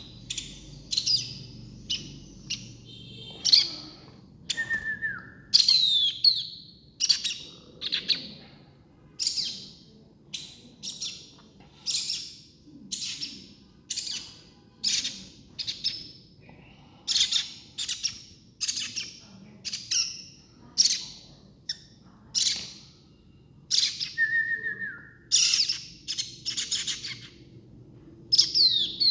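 Baby birds chirping: short, loud, high-pitched calls repeated about once or twice a second. A lower, falling whistle cuts in twice, a few seconds in and again near the end.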